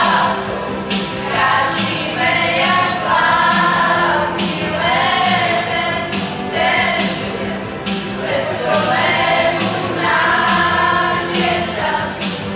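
A group of voices singing a song together in chorus, with sustained sung notes over a steady low note held underneath.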